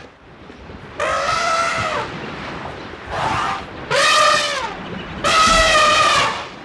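An animal giving three loud, drawn-out calls, each about a second long, that rise and fall in pitch.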